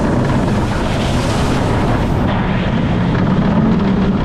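Wind rushing over the microphone as a magnetic launch coaster train runs along its steel track at speed. It is a steady, loud rush with a low rumble underneath.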